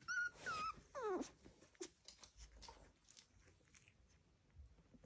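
Miniature pinscher puppies play-fighting, one giving three short high whimpers in the first second or so, the last sliding down in pitch; then only soft rustling and small clicks.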